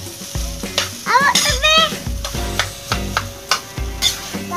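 A metal spoon stirs and scrapes fried rice in a metal pan while it sizzles, with repeated scraping knocks. Background music with a steady beat plays underneath.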